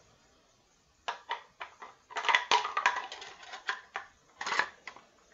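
Metal parts of a 12-gauge MTs 21-12 semi-automatic shotgun clicking, clattering and scraping as it is put back together by hand. The run of sharp clicks starts about a second in and comes in irregular clusters.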